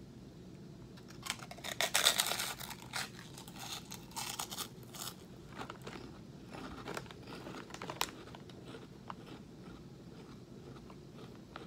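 Crunching as a large fried pork skin (Baken-Ets honey mustard) is bitten and chewed. Loud crunches start about a second in, then fade into quieter chewing over the next several seconds.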